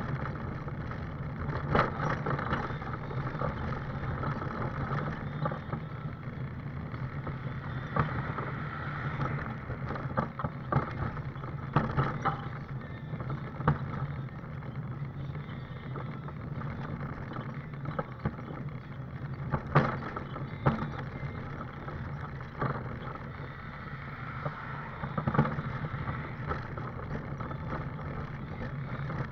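Scooter travelling along a paved footpath: a steady low hum under road and wind noise, with frequent knocks and rattles as it jolts over bumps in the pavement.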